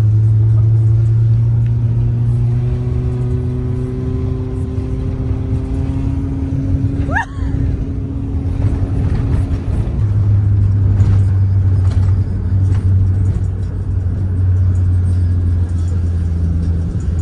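Car engine running, its pitch rising slowly over the first several seconds as the car gathers speed, then settling into a steady hum. About seven seconds in, a brief rising squeak cuts across it.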